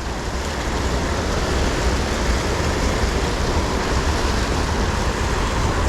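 Steady rushing of a rain-swollen, fast-flowing creek, with a low rumble underneath.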